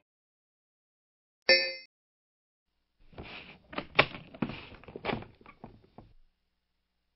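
A brief pitched electronic blip about one and a half seconds in, then about three seconds of irregular knocks and thuds, like comic sound effects laid over a mime routine.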